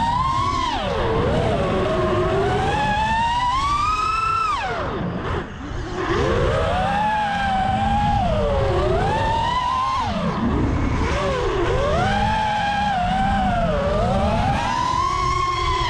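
Four brushless motors of a 5-inch FPV racing quadcopter (T-Motor F40 Pro 2400 KV with HQProp 5045 props) whining, the pitch climbing and falling with the throttle. About five seconds in the throttle is cut and the whine drops away briefly before it climbs back.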